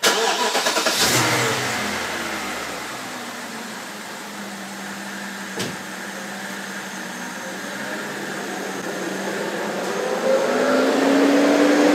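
BMW E65/E66 7 Series engine starting with a brief flare in revs that settles to a steady idle. From about ten seconds in, the auxiliary electric cooling fan spins up with a slowly rising whine, heading for full blast, as if the engine were overheating: a fault that a new thermostat has not cured.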